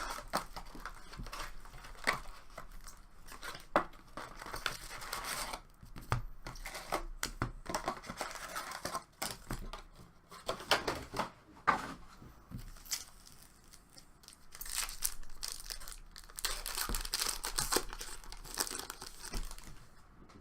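Packs of 2016-17 Fleer Showcase hockey cards being torn open, their wrappers tearing and crinkling in irregular bursts, with a few sharp clicks.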